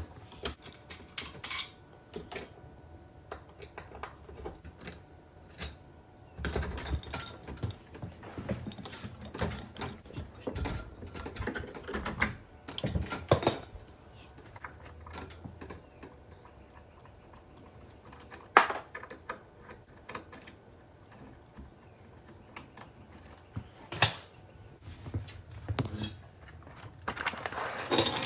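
Irregular clicks, taps and light metal knocks of small deadbolt lock parts being handled, with a few sharper knocks.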